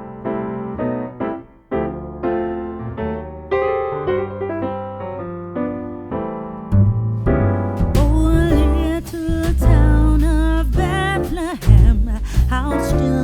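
Background music: keyboard chords in piano-like strokes, joined about seven seconds in by a heavy bass line and a wavering lead melody with vibrato.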